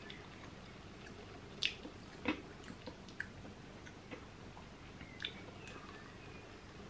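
Close-up chewing of chia bread with a thick, crunchy chocolate spread with cereal crispies: quiet, irregular mouth clicks and small crunches, two of them louder about one and a half and two seconds in.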